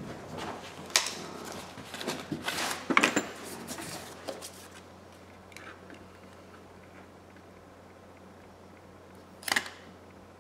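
Hands handling an iPhone 11 on a workbench mat: a flurry of taps, knocks and rustles over the first few seconds, then quieter, with one sharp click near the end.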